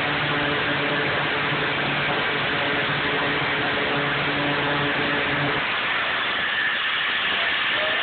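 Angle grinder running and cutting through a metal padlock, a steady hiss of grinding. Under it is a low motor hum that fades out about five and a half seconds in.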